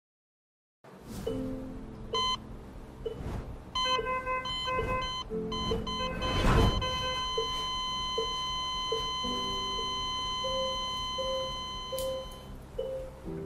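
After about a second of silence, an electronic patient heart monitor beeps several times. About six seconds in it goes into one long steady flatline tone that stops near the end, the sign that the patient's heart has stopped. Soft music notes play underneath.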